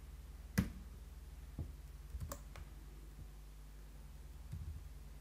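Computer keyboard keys pressed a few times, separate sharp clicks a second or so apart, over a low steady hum.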